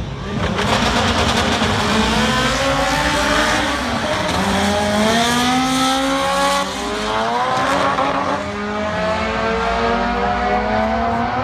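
Drag-racing car's engine revving hard under full acceleration, its pitch climbing steadily and dropping back at gear changes about six and a half and eight and a half seconds in.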